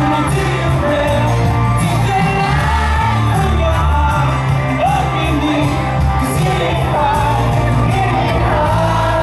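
Live pop concert: a male lead singer sings into a handheld microphone over loud amplified band music, with fans in the hall shouting and whooping.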